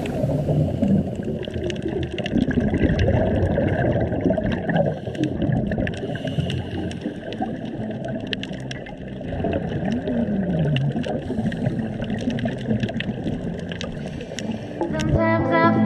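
Underwater sound during a scuba dive: divers' exhaled breath bubbling and gurgling out of their regulators in an uneven rumble, with many scattered sharp clicks.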